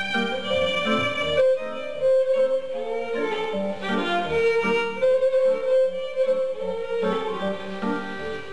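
Violin playing a Romanian folk melody, with sustained bowed notes, over a rhythmic band accompaniment.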